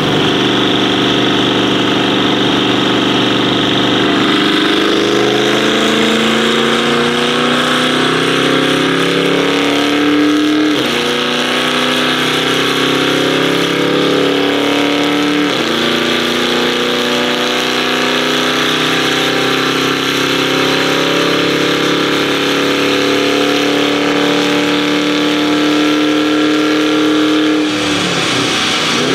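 Tuned Audi RS6 C8's twin-turbo 4.0-litre V8 under full load on a chassis dyno, loud throughout. Its pitch climbs slowly, dropping sharply twice at gear changes about 11 and 15.5 seconds in, then falls away near the end as the throttle closes.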